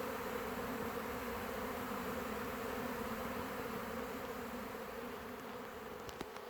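A honey bee swarm in flight: the steady hum of a great many bees' wings, easing off slightly near the end, with a few faint ticks just before it ends.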